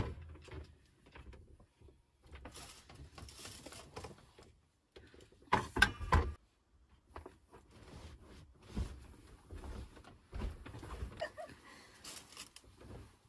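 Caravan dinette being made into a bed: the slatted base pulled out and backrest cushions shifted and laid across it, with scattered knocks and soft thumps, the loudest about six seconds in. Near the end a fabric blanket rustles as it is spread out.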